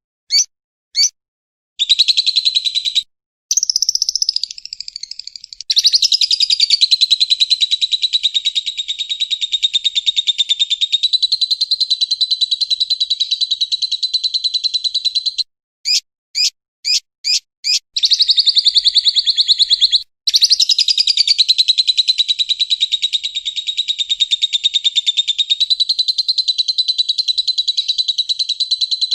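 Masteran (song-training) recording of lovebird and woodpecker calls: long bouts of rapid, high-pitched chattering trills lasting several seconds each, broken by short single chirps near the start and about halfway through.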